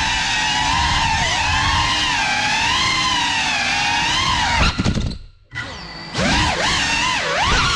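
FPV quadcopter's brushless motors whining, the pitch wavering up and down with the throttle. About five seconds in the sound nearly cuts out for a moment, then comes back with quick swooping rises and falls as the throttle is worked hard.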